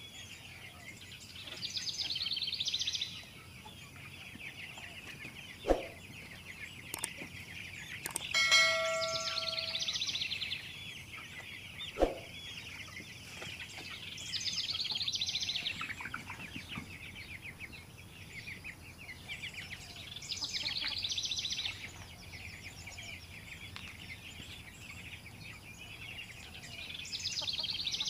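A flock of young broiler chickens peeping and chirping nonstop, with louder bursts of peeping every few seconds. Two sharp knocks about six seconds apart, and a brief bell-like ring between them, are the loudest sounds.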